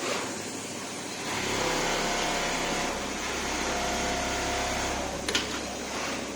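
Automatic pocket welting sewing machine running, a steady motor hum rising about a second in and easing off near five seconds, with one sharp click shortly before the end.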